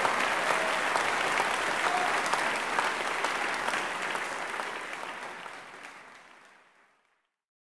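Audience applauding, a dense patter of many hands clapping that fades out over the last few seconds.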